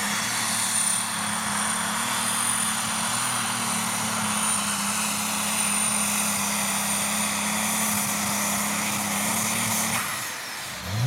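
Triple-turbocharged International 6588 Super Stock pulling tractor running flat out under load while pulling the sled: a steady engine drone with a high, steady whine above it. The sound drops away about ten seconds in as the pull ends.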